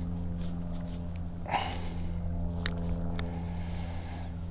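Small boat motor running with a steady low hum. A short rustle comes about a second and a half in, and two light clicks come near the three-second mark.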